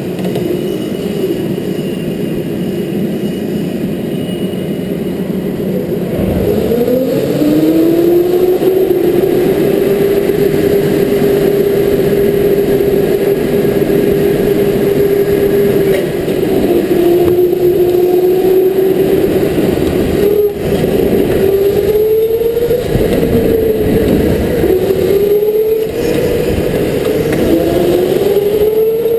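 Electric go-kart motor whining over road and wind noise. The pitch climbs as the kart accelerates about six seconds in and holds steady along a straight. From then on it dips and climbs repeatedly as the driver brakes for corners and accelerates out of them.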